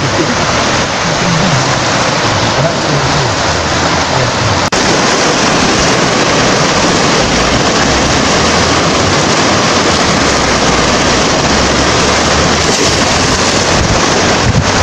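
Steady loud rushing of a swollen, fast-flowing river running in white-water rapids. A sudden brief dip comes about five seconds in, after which the rush is slightly louder and more even.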